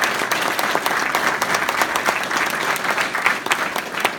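Audience applauding, many hands clapping at once; the applause thins out near the end.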